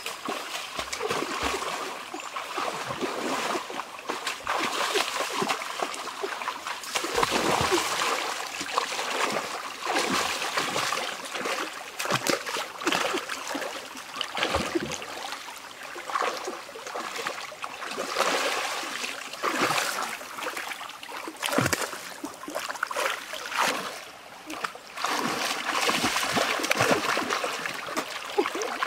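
Repeated irregular splashing in a shallow rocky stream as a person wades and lunges with hands and body in the water, grabbing for fish, over the steady trickle of running water.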